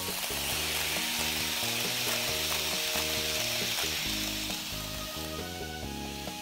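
N-scale model train rolling past on its track, its wheels and motor making a steady hiss that swells and then fades as it goes by, over background music.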